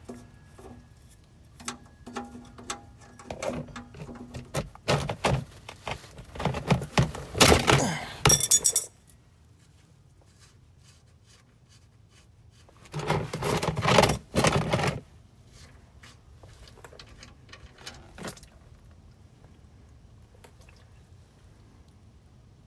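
Wrench working the oil drain plug loose on a 1929 Buick's oil pan: a run of metal clicks, knocks and clinks, with two louder, longer clattering stretches partway through, then only faint background.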